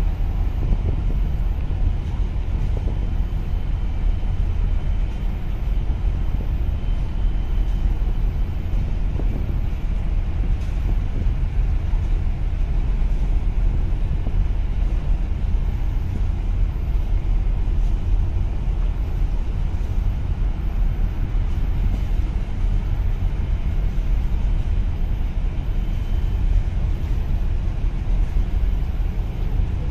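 A steady low rumble, strongest in the deep bass, with no clear pitch or rhythm.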